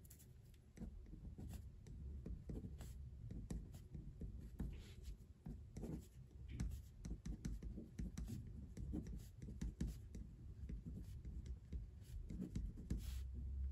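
Pen writing by hand on a sheet of paper: a run of short, irregular scratching strokes as words are written out.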